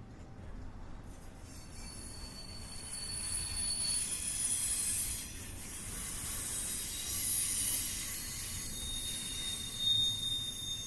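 Steel wheels of a double-stack container train squealing on the rails in several thin, high steady tones, growing louder about three seconds in, over a low rumble from the rolling train.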